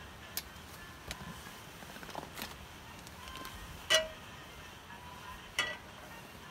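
Light clicks, then two ringing metal clanks about four and five and a half seconds in, the first the louder: a frying pan knocked on the metal grate of a camping gas stove as it is handled.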